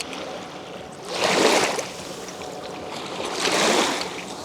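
Two small waves washing onto a beach, each a brief rushing swell, the first about a second and a half in and the second near the end.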